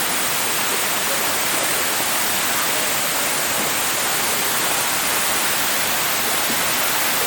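Steady rush of a waterfall's falling water, an even, unbroken roar of noise.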